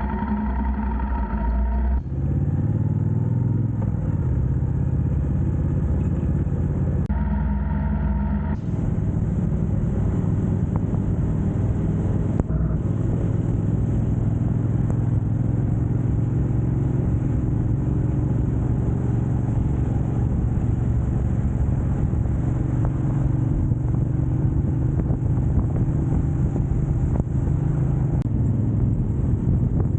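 Motorcycle running at road speed, with engine drone and a steady rush of wind and road noise. The sound changes abruptly a few times, about 2 seconds in and again around 7 and 8.5 seconds.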